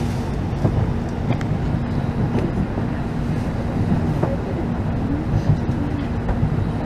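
Inside the passenger cabin of a Shinkansen bullet train rolling at low speed: a steady low rumble of the running gear with a constant hum and a few light clicks.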